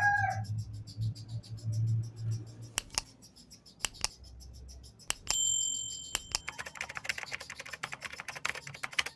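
Metal clipper blades being handled: a few sharp clicks, a short metallic ring a little past halfway, then a fast run of scratchy ticks near the end.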